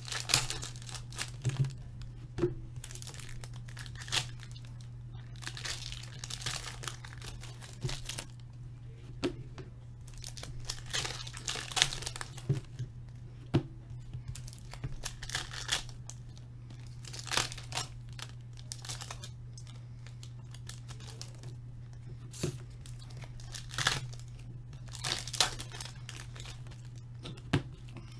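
Hockey-card packs being torn open by hand, their wrappers crinkling in irregular rustling bursts, with sharp clicks of cards being handled and stacked. A steady low hum runs underneath.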